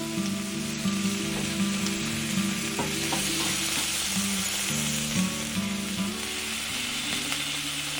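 Food frying in a small pan with a steady sizzle, a few clicks and scrapes of a stirring utensil about three seconds in, under background music with a melody.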